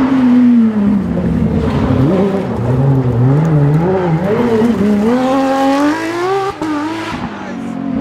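Porsche 997 GT3 rally car's flat-six engine revving hard as the car approaches and passes. The pitch rises and falls through the gears. About five seconds in it climbs steadily under full acceleration, then drops suddenly at an upshift.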